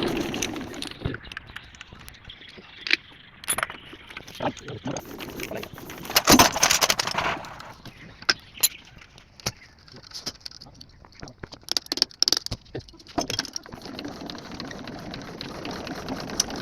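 Irregular metallic clinks and knocks of tools and parts being handled on a diesel engine during repair work. About six seconds in there is a louder clatter lasting about a second.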